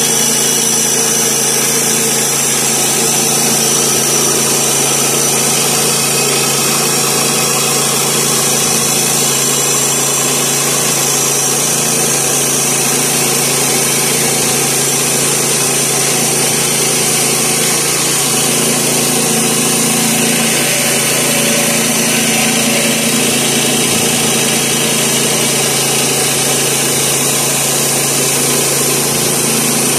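Woodland Mills HM122 portable bandsaw mill cutting through sycamore: its 7 hp Kohler engine runs steadily at working speed while the band blade saws along the slab.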